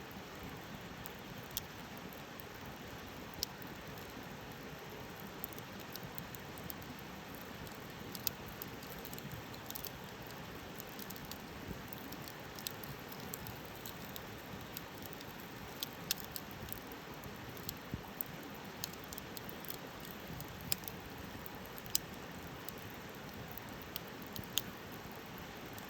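Campfire burning: a steady hiss with irregular sharp crackles and pops from the burning wood.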